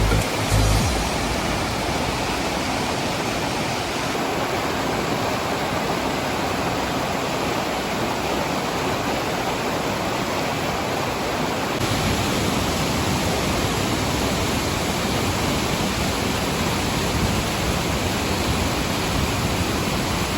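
Steady, dense roar of a large waterfall in monsoon flow, a continuous rushing of water with no pauses. The tail of background music fades out about a second in.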